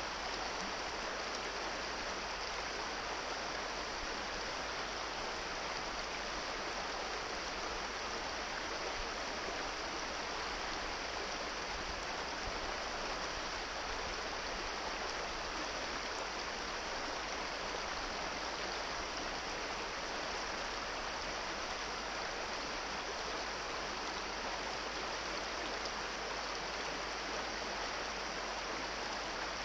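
Small rocky brook rushing over riffles and stones: a steady, even wash of running water.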